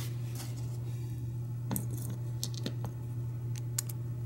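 Light metallic clicks and clinks as a key is handled and slid into the brass plug of an American 1100 padlock, over a steady low hum.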